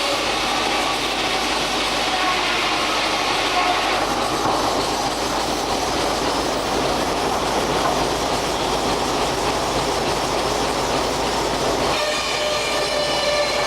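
Steam-powered antique sawmill running, its saw blade spinning with a steady ringing hum, then cutting into a log with a loud, steady rasp from a few seconds in; near the end the hum of the blade comes back through.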